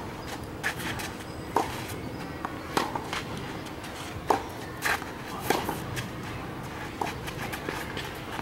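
Tennis rally on a clay court: tennis balls struck by rackets and bouncing, a sharp pop about every second.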